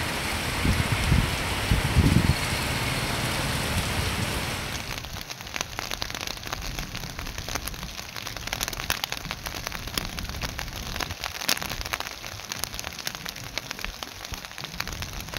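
Heavy rain falling on a road: a dense steady hiss with some low rumbling in the first couple of seconds. About five seconds in it turns quieter, with separate drops heard ticking as they hit.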